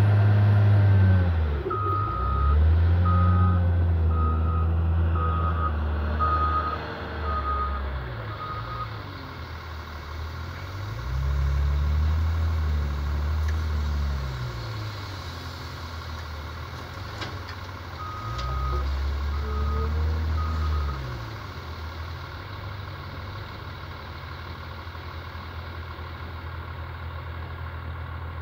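Caterpillar 950H wheel loader at work: its diesel engine revs up and falls back three times as it backs, lifts and dumps into a truck, then drops to a steady idle. Its reversing alarm beeps in a run of about eight early on, and three more times around two-thirds of the way through.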